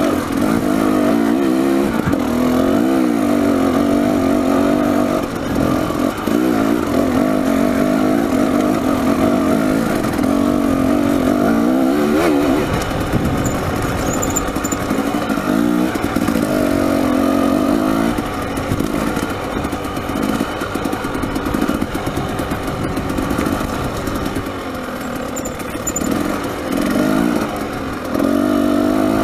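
Dirt bike engine running under load on a rocky trail, its revs rising and falling with the throttle. It drops to lower, quieter running for a stretch past the middle and picks up again near the end.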